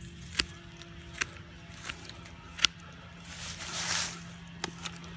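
Hand clippers snipping through dead, dry ornamental grass stems at the base of a clump: four sharp snips of the blades closing, the loudest about two and a half seconds in, with a rustle of the dry grass just before the four-second mark.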